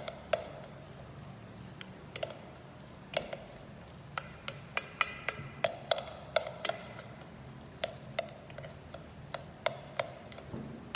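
A spoon stirring and pressing a thick potato, milk tofu and bacon mixture in a bowl, the spoon clicking and tapping against the bowl over and over at an uneven pace, thickest in the middle.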